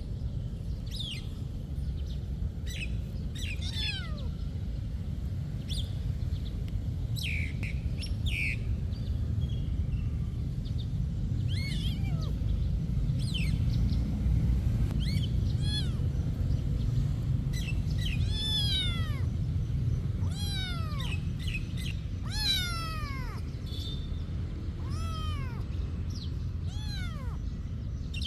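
A cat meowing over and over, short falling calls coming every second or two through the second half, with short chirps in the first half and a steady low rumble underneath.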